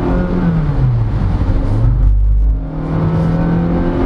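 Honda BR-V's 1.5-litre four-cylinder engine under hard acceleration through a CVT. The engine note falls about half a second in as the transmission steps up to a higher ratio by itself, dips briefly around the middle, then holds high again.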